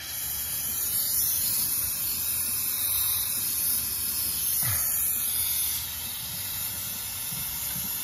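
Small oxy-fuel jeweller's torch with a number 7 tip burning, its gas flame giving a steady hiss.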